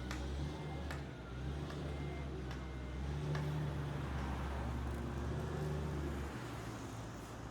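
A large engine running with a steady low rumble that cuts off about six seconds in, with a few sharp knocks in the first few seconds.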